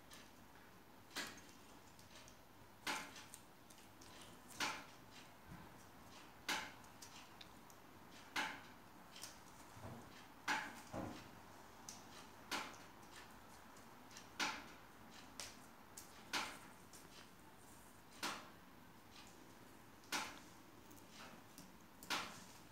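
A sharp click repeating at an even pace, about once every two seconds, with fainter ticks between.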